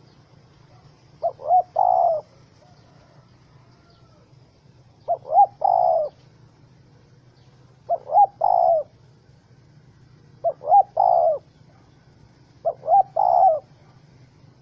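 Spotted dove cooing: five phrases, each two quick short notes and then a longer rolling coo, repeated every two and a half to three seconds.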